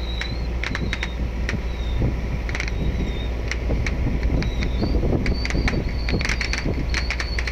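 Steady low engine drone and wind-and-water noise aboard a moving fishing boat, with frequent sharp clicks and faint high wavering squeaks.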